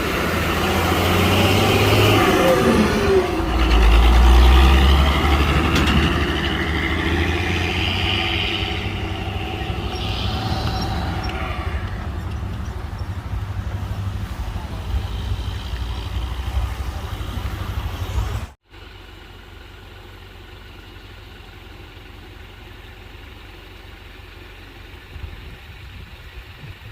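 Diesel truck engine running hard on a steep, muddy climb, with a deep rumble swelling about four seconds in and voices mixed in. About eighteen seconds in the sound cuts off abruptly to a much quieter, steady engine idle.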